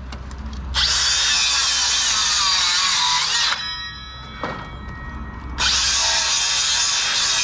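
Makita cordless circular saw cutting through a softwood timber batten. It makes one cut of about three seconds starting about a second in, then starts a second cut after a short pause.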